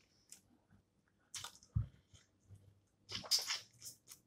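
Close-up eating sounds of snow crab: wet, squishy chewing and sucking of the meat, in short bursts, the loudest about a second and a half in and again around three seconds in.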